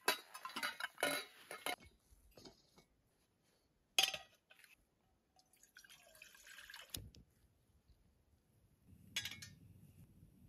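Camp cooking gear handled on sand: a small metal pot and stove clinking, then water poured from a plastic bottle into the pot, with sharp clicks. Near the end comes the low, even sound of the canister stove burning under the pot.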